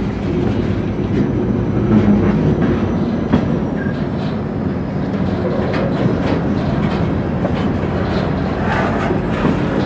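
Empty lumber-carrying freight cars rolling past at close range: a steady rumble of steel wheels on rail with irregular clicks and clunks as the wheels cross rail joints. A faint thin high squeal runs through part of it.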